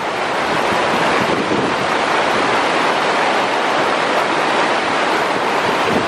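Shallow river water rushing and splashing over a rocky riffle: a loud, steady whitewater rush.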